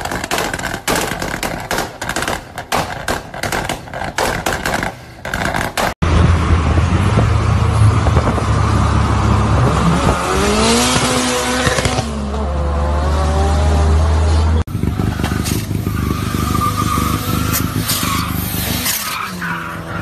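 Turbocharged Tofaş Doğan car driven hard in a few edited clips: engine running with sharp crackles in the first, then tyres squealing and the engine pitch gliding up and down in the middle, with sudden cuts between clips.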